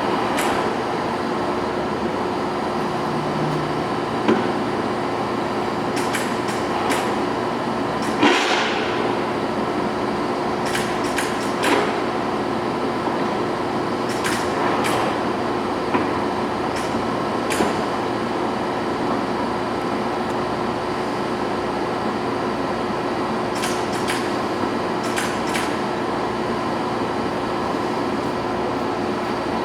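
Ticino EST420 gap lathe running under power, its headstock gears and spindle giving a steady mechanical hum with a few held tones. A scatter of short clicks and knocks sounds over it, most in the middle and again near the end.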